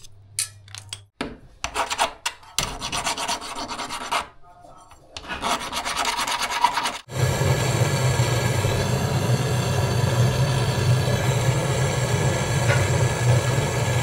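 Irregular scraping and rasping strokes as the quarter-inch copper pipe is worked by hand, then about seven seconds in a handheld gas-can torch lights and burns with a steady hiss of flame, brazing the new copper pipe joint on the refrigerator's refrigerant line.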